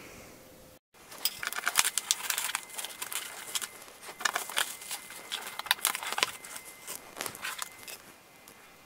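Bubble wrap and plastic packing tape crinkling and tearing as a parcel is cut open with scissors and the wrapping pulled apart: an irregular run of crackles and rustles starting about a second in and dying away near the end.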